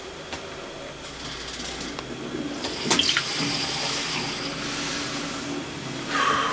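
Potatoes being peeled by hand: a rough, wet scraping of peeler and peel, with a sharp knock about three seconds in.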